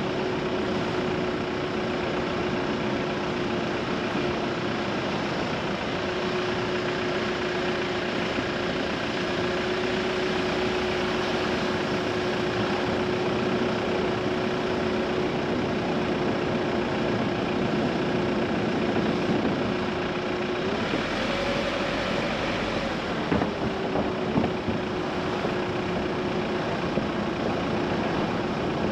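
Car driving along a narrow country lane: steady road and tyre noise with a constant engine hum. About two-thirds of the way through, the hum rises in pitch for a couple of seconds and then drops back, followed by a few light knocks from bumps in the road.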